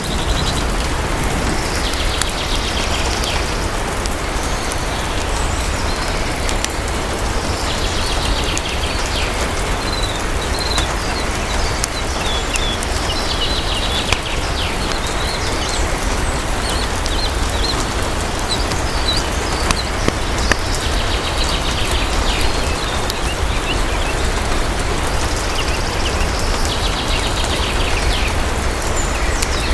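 Steady rain falling, with a low, continuous rumble underneath. Short bird chirps and trills come in every few seconds over the rain.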